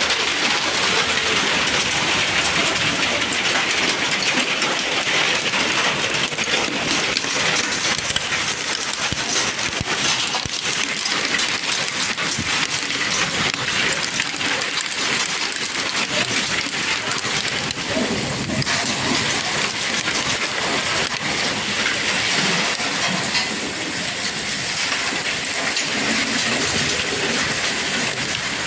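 Hailstorm: a steady, dense clatter of countless hailstones striking hard surfaces within the rush of falling ice and rain.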